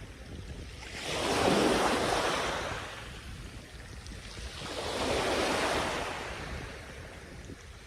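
Sea waves breaking on a sandy beach: two swells of surf, the first about a second in and the second about four and a half seconds in, each rising and fading over a couple of seconds.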